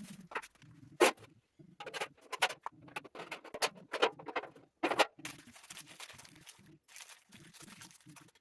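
Steel parts of a flat-packed welding cart being handled during assembly: irregular clanks, clicks and knocks with rustling between them, the sharpest knock about a second in.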